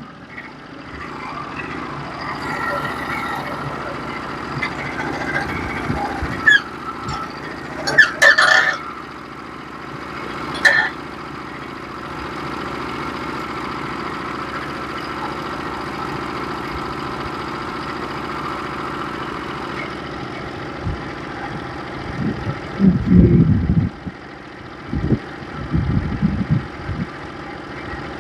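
Band sawmill's engine running steadily as the nicked blade is fed slowly through a wide white oak log. A few brief clatters about eight and eleven seconds in, and low thumps near the end.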